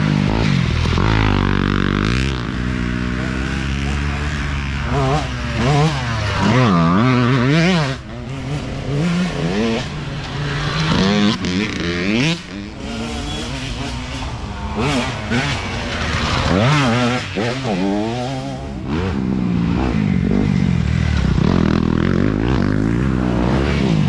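Dirt bike engines revving hard and easing off as several riders pass in turn, the pitch climbing and dropping again and again with throttle and gear changes.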